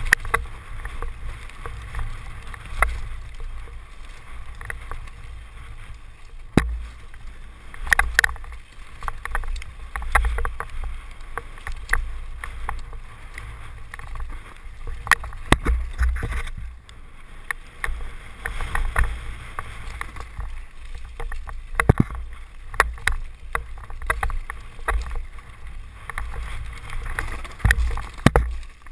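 Mountain bike descending a rocky dirt trail at speed, heard from a helmet camera: a steady low rumble of wind on the microphone, with frequent sharp clicks and rattles from the bike and tyres over stones.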